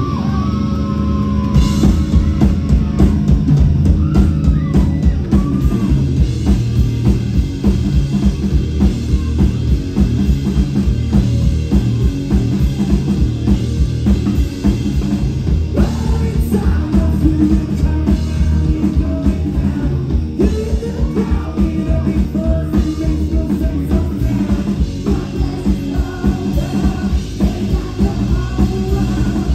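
Indie rock band playing live and loud: electric guitar, bass guitar and a driving drum kit beat with a steady fast pulse, heard through the club's PA.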